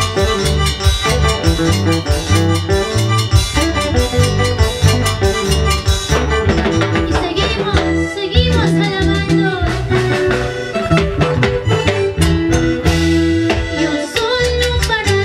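Live band playing a Christian huayno: electric bass, keyboard, guitar and drum kit with a steady beat.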